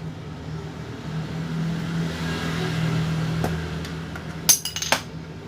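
Small metal parts clinking in a quick cluster of sharp clicks near the end, over a steady low hum that grows louder through the middle.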